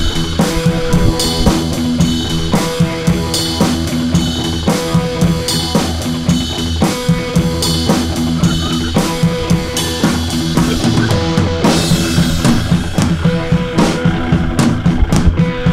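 Background music with a steady drum kit beat, bass drum and snare over sustained instrument notes.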